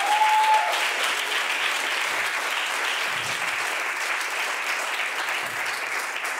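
Theatre audience applauding steadily after a joke, with one brief held high note over the clapping at the start. The applause thins out near the end.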